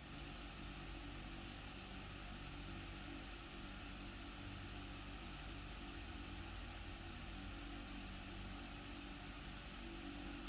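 Faint, steady low machine hum with a light hiss.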